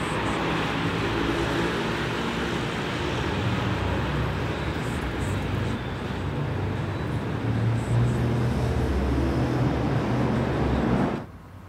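Elevator running, a steady mechanical rumble with a low hum, cutting off abruptly near the end.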